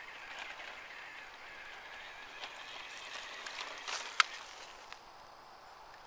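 Toy RC backhoe's small electric drive motor and gears whining thinly as it drives away over dirt, fading out about two and a half seconds in. Scattered ticking and crackling follow, with one sharp click about four seconds in.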